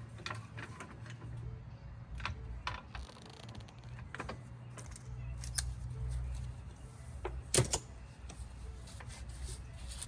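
Scattered clicks and knocks of tools and parts being handled during a tire change, the loudest knock about seven and a half seconds in, over a steady low hum.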